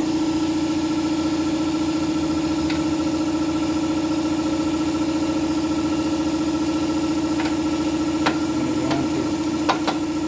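Shop air compressor kicking on and running steadily with a loud, even hum. A few light clicks sound over it in the second half.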